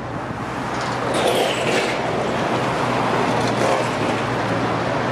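Vehicle noise at a railway crossing: a steady low hum with a broad rush that swells about a second in and then holds.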